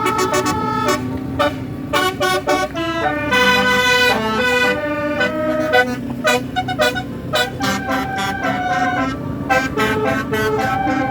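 Indonesian telolet bus horn, a multi-tone horn, playing a quick tune of short notes that jump from pitch to pitch, with a few longer held notes, over the bus engine running.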